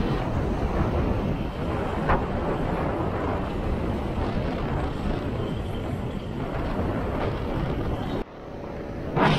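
Wind buffeting an action camera's built-in microphone, with the rumble of the vehicle and road carrying it, recorded while moving along a road. The noise drops away abruptly about eight seconds in and comes back loud just before the end.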